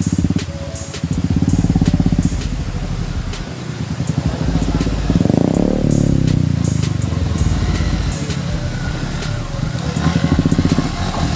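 Motorcycle engine running and being revved as the bike is ridden through a shallow, stony river, the revs swelling about halfway through and again near the end.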